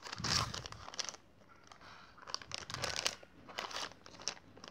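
Plastic foil packet of light-up balloons crinkling in the hands as it is turned over and handled, in several separate rustles: one right at the start and more from about halfway through.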